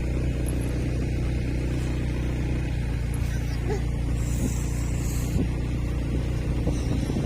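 A motor engine running steadily at an even speed, with a constant low hum.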